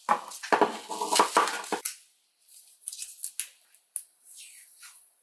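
Bubble wrap crinkling and crackling as it is handled and rolled around a small item. The noise is busiest for the first two seconds, then thins to a few light ticks and rustles.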